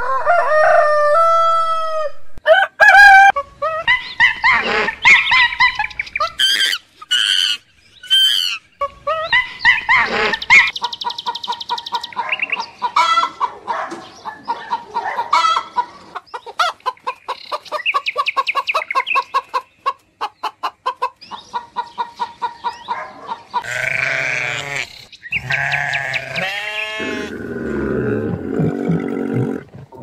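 Chickens: a rooster crowing, and a long run of quick, repeated clucks. Near the end comes a lower-pitched animal call.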